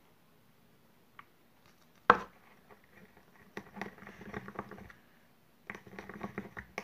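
Slime-making cup and utensils being handled while a little water is added to the glue mixture: one sharp knock about two seconds in, then two runs of quick small clicks, taps and wet patter.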